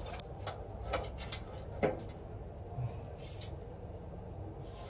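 Scattered light clicks and taps of computer parts being handled during a PC build, over a low room background.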